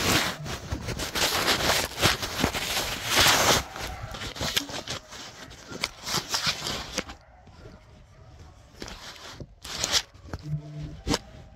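Phone microphone rubbing against clothing as it is put into a pocket: loud rustling and scraping for the first several seconds, then muffled, with a few sharp knocks near the end.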